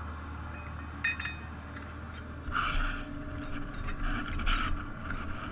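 Metal tow-shackle hardware being handled: a ringing metallic clink about a second in, then a run of scrapes and clanks from about halfway, over a steady low hum.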